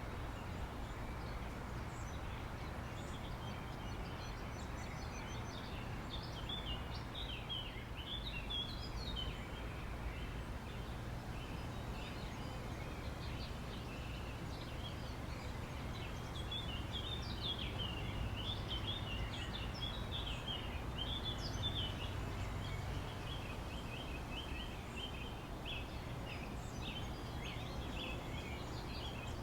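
Outdoor park ambience: many birds chirping over a steady low background rumble. The chirping thickens about a fifth of the way in and again through most of the second half.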